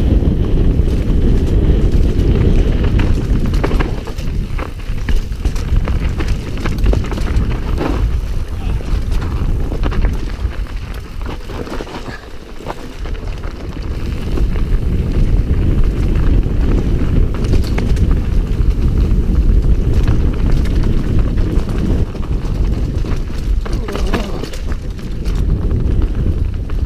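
Wind buffeting the microphone over the rumble of a mountain bike's tyres on a dirt trail at speed, with frequent knocks and rattles from the bike over bumps. It eases for a moment about halfway through.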